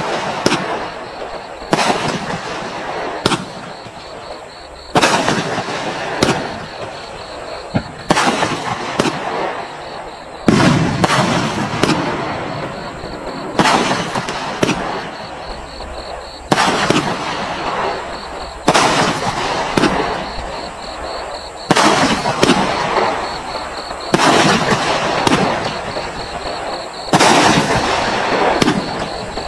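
Bright Star 'Road Rage' 72-shot consumer fireworks cake firing shot after shot: sharp bangs of aerial bursts about every one to two seconds, each trailing off before the next.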